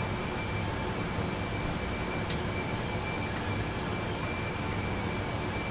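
Steady background hum and hiss with a thin high whine running through it, and a couple of light clicks about two and four seconds in from small lock parts being handled.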